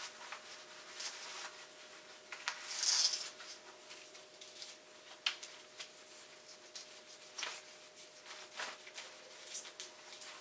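Rustling of a running vest's fabric as folded trekking poles are worked into its back pocket, with scattered light clicks and scrapes. A louder rustle comes about three seconds in, and a sharp click a couple of seconds later.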